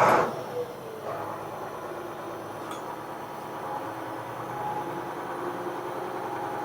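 International crane truck's diesel engine idling steadily on a cold start after long storage, running a little rough. A short loud noise comes right at the start.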